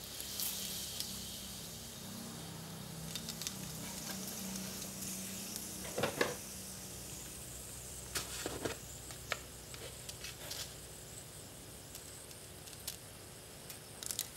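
Bay leaves sizzling in hot cooking oil in a pan: a steady high hiss with scattered pops and crackles, the loudest burst about six seconds in.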